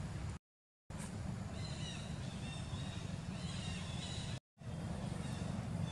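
Outdoor background of a steady low rumble, with faint high-pitched animal calls chirping from about a second and a half in until past three and a half seconds. The sound cuts out completely twice, once for half a second and once very briefly.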